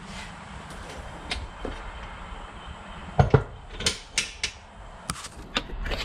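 A few short, sharp knocks and clunks from objects being handled and set down, starting about three seconds in, over a faint steady low hum.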